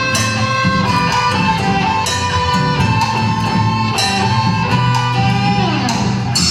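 Band playing an instrumental passage of a Brazilian song, led by guitar over regular percussion hits. Near the end a melody line slides down in pitch.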